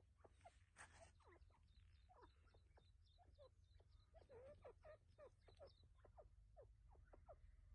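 Faint bird calls: many short falling chirps, with a thin high note repeated about four times a second through most of the first half, over a steady low hum.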